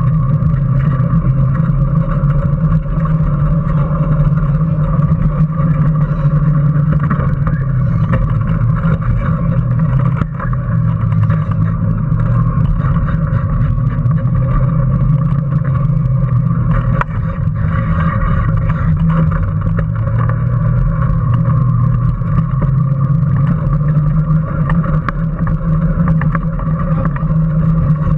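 Small electric Power Racing Series car under way, heard from a camera mounted on the car: a steady low hum from its motor and drivetrain with light rattling, dipping briefly about ten seconds in.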